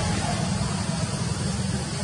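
Steady low rumble with an even hiss over it, with no distinct events.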